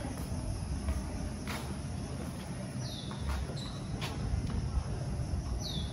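Outdoor ambience: three short, high chirps that fall in pitch, spaced a few seconds apart, over a steady low rumble.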